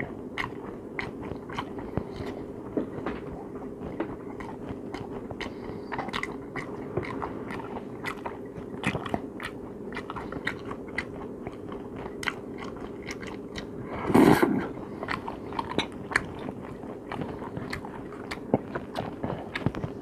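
A man chewing and eating crab meat close to the microphone, with many small clicks throughout and one louder burst about two-thirds through, over a faint steady hum.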